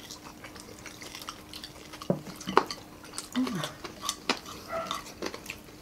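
Spoons clinking and scraping against plates during a meal, with a few sharp clinks scattered through.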